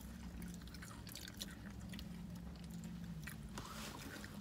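Faint chewing of fast food such as french fries, with small scattered clicks and a low steady hum under it that fades about three seconds in.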